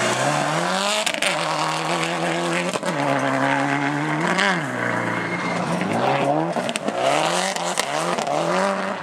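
Subaru Impreza rally car's turbocharged flat-four engine revving hard on a gravel stage, the pitch climbing and then dropping back again and again as it shifts and lifts through corners. A few sharp cracks come about a second in and again around six and a half seconds.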